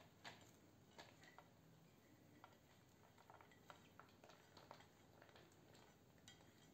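Faint light clicks and soft rustles, irregular and scattered, of finely shredded cabbage being pushed off a plate with a plastic spatula and dropping into a bowl.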